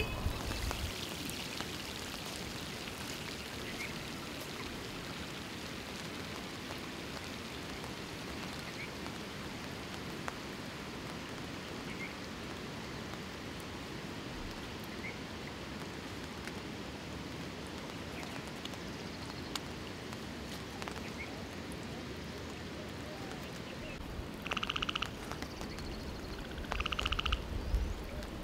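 Steady patter of monsoon rain on floodwater, with faint chirps every few seconds. Near the end, two louder pulsed croaking calls about two seconds apart: frogs calling in the flooded field.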